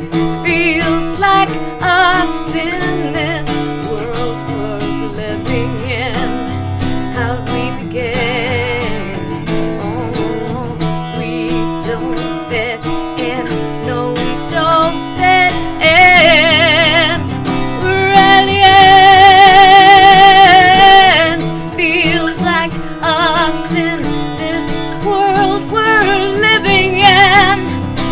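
Live acoustic song: a singer with acoustic guitar accompaniment, singing with vibrato. About two-thirds of the way through, the singer holds a long, loud high note.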